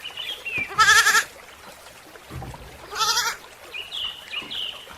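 Goat bleating twice in short, quavering calls, about a second in and again about three seconds in. Faint high chirps come between the bleats.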